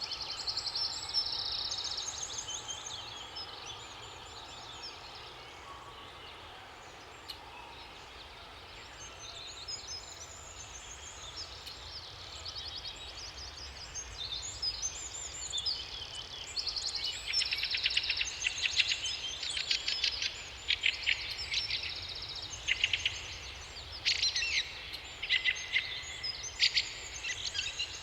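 Several songbirds singing in the forest, with quick repeated chirps and rapid trills overlapping. The singing thins out for a few seconds early on, then grows dense and louder in the second half.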